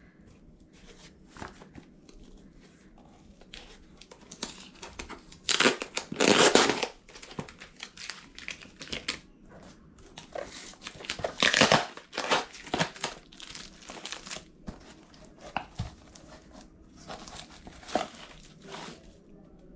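Parcel packaging being torn open and crinkled by hand, in irregular bursts of rustling, with the loudest tearing about six seconds and about twelve seconds in.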